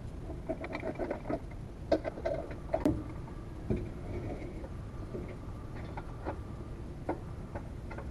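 Scattered metallic clinks and knocks with a few short squeaks, from hand tools and parts as a Mazda Miata's differential is worked loose and removed. The sharpest knocks come about two and three seconds in.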